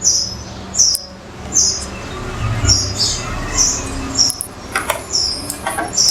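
Repeated short, high chirps, a small bird calling over and over, with a few sharp clicks in the second half.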